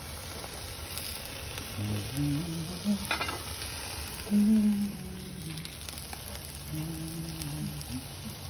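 Vegetable kebabs and steak sizzling on the grate of a charcoal tabletop grill, a steady sizzle throughout. A sharp click comes about three seconds in, and a few brief low hums sound over it.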